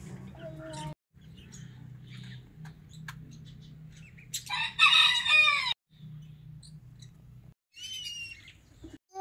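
A rooster crows once, about four and a half seconds in, the loudest sound here; a small bird gives a couple of short falling chirps near the end.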